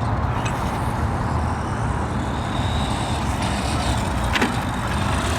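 Arrma Fury 2WD brushed electric RC car driving on a dirt track: a faint electric motor whine over steady outdoor noise, with a short click about four and a half seconds in.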